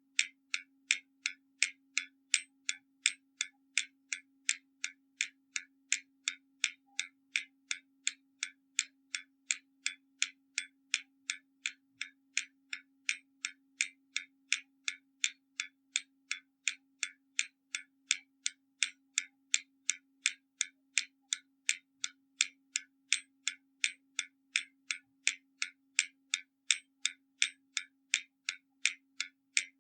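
Hermle mechanical skeleton clock ticking steadily. The escapement gives even, sharp ticks, alternately louder and softer, a tick and a tock.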